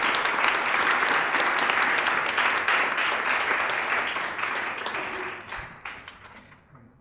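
Audience applauding. The clapping holds steady, then thins to scattered claps and fades away over the last few seconds.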